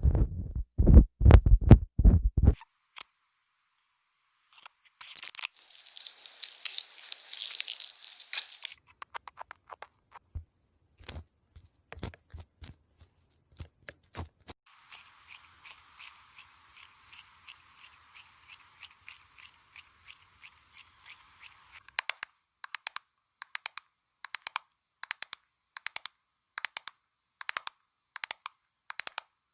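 Close-miked ASMR handling sounds of makeup products: a few low thuds at first, then scratchy rustling and scattered clicks, and near the end a steady run of sharp taps about two a second.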